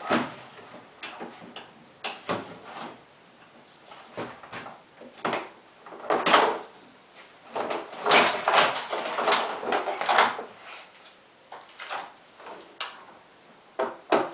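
Irregular clicks, knocks and scraping rattles of parts being handled while a washing machine is worked on, with a cluster of louder rattles about eight to ten seconds in.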